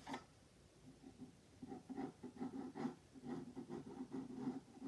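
Pencil sketching on paper: a run of short scratching strokes, sparse at first, then several a second from about a second and a half in.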